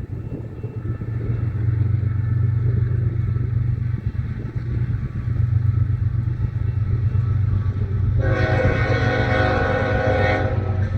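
A steady low rumble, then a loud multi-note horn that sounds abruptly about eight seconds in, holds a steady chord for about two seconds and cuts off sharply.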